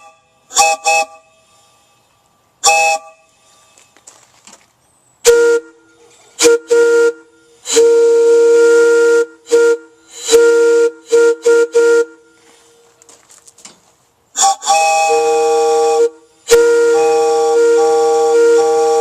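Homemade multi-chime copper-tube air whistles blown with compressed air through quick-opening valves, each blast a loud chord of several steady tones. Several short sharp toots come in the first few seconds, then a string of blasts, some short and some long, the last and longest lasting about three seconds.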